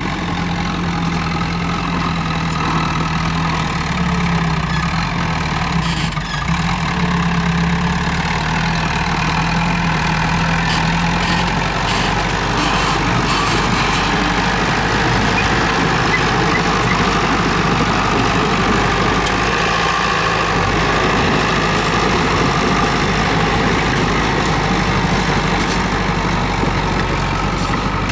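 Komatsu D31P crawler bulldozer's diesel engine running steadily as it works, with a slight change in its engine note a little under halfway through.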